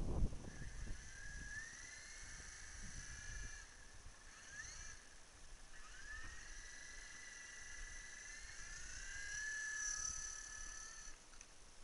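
High-pitched whine of a small motor with several tones, rising in pitch a few times and shifting again near the end, over low rumble from wind or handling.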